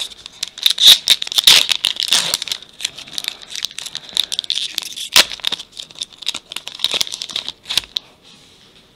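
Plastic wrapper of a trading-card pack being torn open and crinkled by hand, a dense run of crackles and rustles that stops about eight seconds in.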